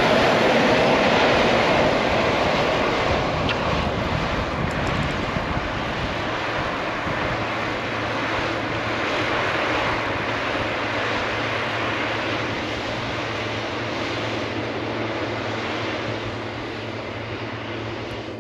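Tractor engine running at working speed, loud at first and fading gradually as the tractor moves away across the field.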